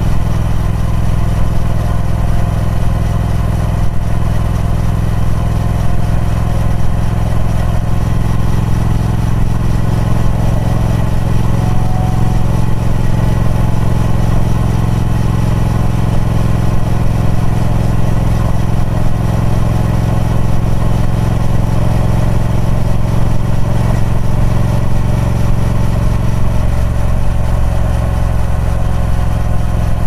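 Triumph Speed Twin 1200's 1200 cc parallel-twin engine, with its 270° crank, running through the stock exhaust at a steady engine speed, holding one pitch and one loudness throughout.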